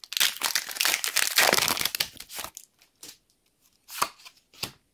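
A foil trading-card booster pack wrapper crinkling and tearing as it is ripped open, lasting about two and a half seconds. After a pause, two brief rustles near the end as the cards are handled.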